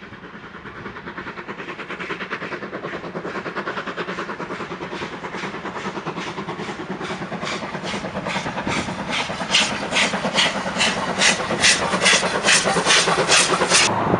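Steam locomotive working a passenger train, its exhaust beating in an even chuff of about three beats a second, growing steadily louder as it approaches, then cut off abruptly near the end.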